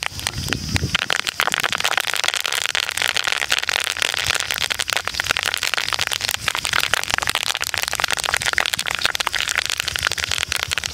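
Fresh curry leaves frying in hot oil in an iron kadai, with a dense, continuous sizzling crackle as the water in the leaves boils off; they are being fried until crisp.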